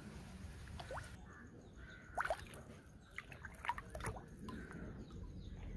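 Faint dripping and small splashes of water, in scattered short clicks and brief sweeps.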